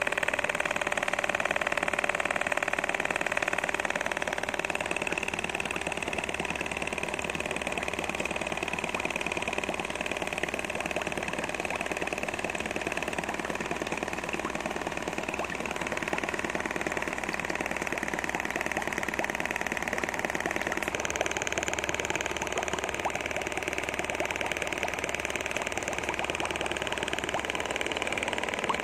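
Small brushed DC motor driving a homemade crank-and-diaphragm air pump, running steadily with a whir and a fast mechanical chatter from the pump's strokes.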